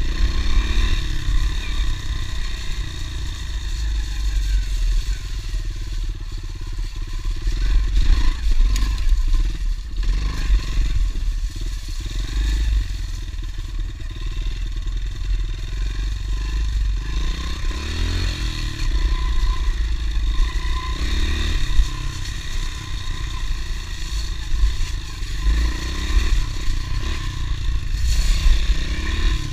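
Honda CRF110 pit bike's small single-cylinder four-stroke engine running as the bike rides a dirt trail, the revs rising and falling, under a steady low rumble.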